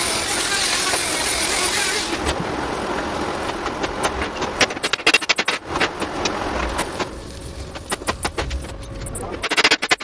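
Heavy-duty repair workshop noise: a rushing hiss for about two seconds, then a run of clicks and knocks, busier near the end.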